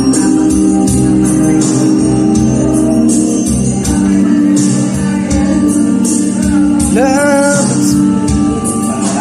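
A woman singing karaoke into a microphone over a backing track from a loudspeaker. She holds a long, wavering note about seven seconds in.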